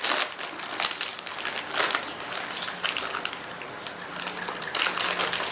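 Plastic snack packet being pulled open and handled, giving a dense, irregular crinkling crackle with louder bursts at the start, about two seconds in and near the end.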